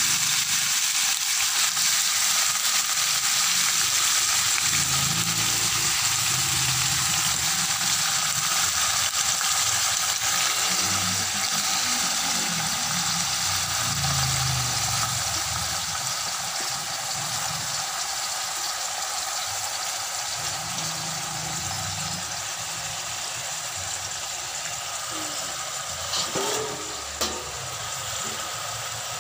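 Chicken pieces frying in hot oil in a wok: a steady sizzling hiss that gradually gets quieter. Two short knocks sound near the end.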